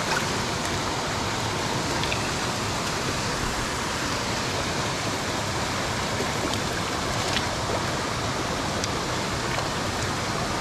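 Small rocky brook running over stones: a steady rush of water, with a few faint ticks scattered through it.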